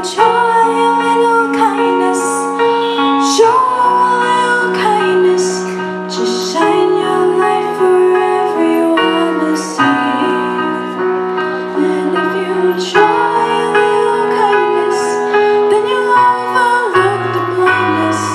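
Music: a woman's voice singing long held notes over piano accompaniment.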